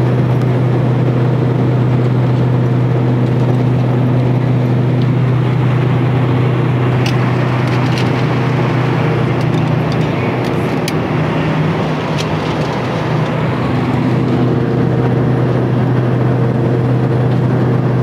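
Cabin drone of a turboprop airliner in cruise: the engines and propellers run steadily, a loud low hum with a constant tone over airflow noise. A few light clicks come in the middle.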